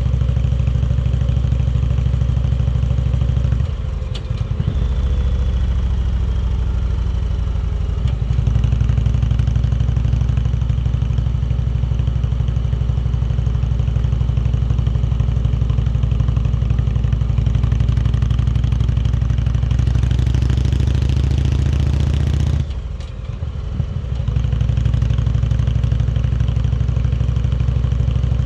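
Indian Chieftain Dark Horse's V-twin engine running under way at steady revs. The exhaust note drops away briefly three times: about four seconds in, around eight seconds, and near the end. Before the last dip the revs climb for a few seconds while the wind rush rises.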